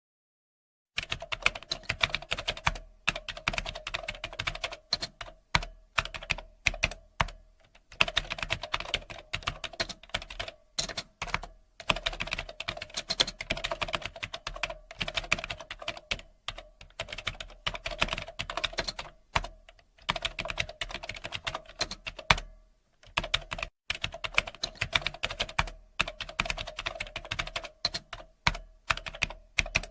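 Typing on a computer keyboard: fast runs of key clicks with short pauses between bursts and a few harder keystrokes. The typing starts about a second in, after a moment of silence.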